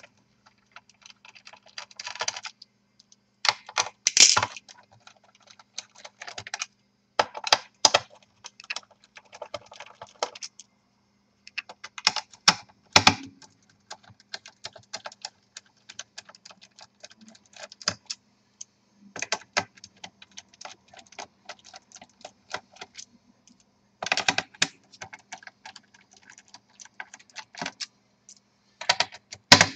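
A small screwdriver backing screws out of the plastic bottom case of a Toshiba Satellite C850 laptop: irregular runs of fine clicks and ticks, with a few louder clicks now and then.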